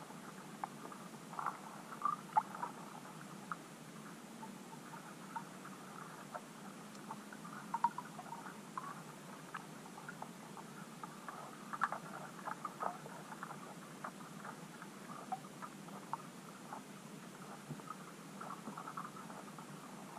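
Underwater ambience picked up by a camera submerged in a lake: irregular small clicks and ticks, several a second and bunched in places, over a steady low hum and hiss.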